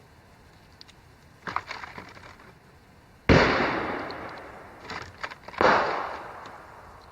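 Two 9mm pistol shots from a Ruger LC9S, a little over two seconds apart, each sharp crack trailing off in a long echo. Fainter pops come before and between them.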